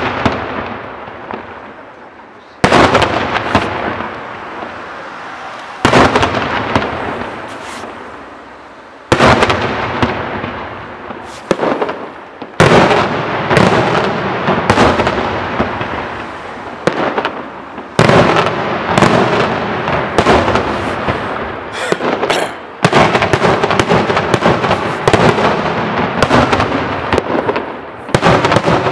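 Daytime fireworks display: aerial shells bursting overhead in loud bangs, each echoing and dying away over a few seconds. The bangs come a few seconds apart at first, then crowd together into a rapid, almost continuous barrage toward the end.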